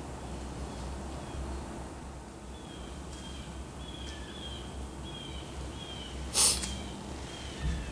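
A bird calling over and over in short, falling chirps, over a steady low rumble. About six and a half seconds in there is a single sudden, brief hissing burst, the loudest sound, and a soft thump follows near the end.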